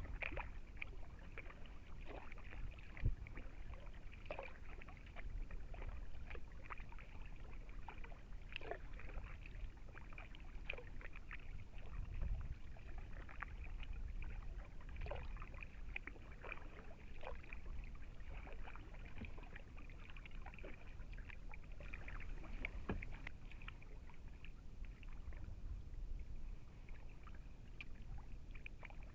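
Kayak paddle strokes: the blades dipping in and pulling through calm water, with scattered small splashes and drips. A steady high-pitched drone runs underneath.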